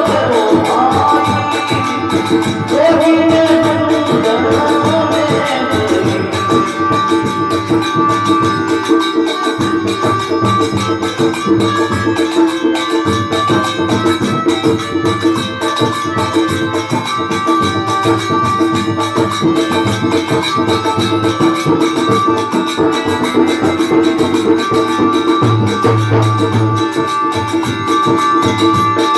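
Live Rajasthani devotional bhajan music, here an instrumental passage: a sustained melody over fast, steady rattling percussion.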